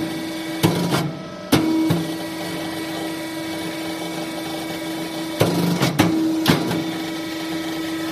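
Electric motor and hydraulic pump of a hydraulic two-head paper corner-rounding machine running with a steady hum. Sharp clacks from the machine come three times in the first two seconds and three more times about five and a half to six and a half seconds in.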